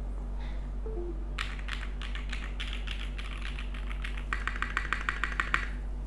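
Typing on a Geonworks F1-8K mechanical keyboard with Geon black linear switches and GMK Jamon doubleshot ABS keycaps. Keystrokes begin about a second and a half in, turn into a quick run of about eight presses a second near the end, then stop.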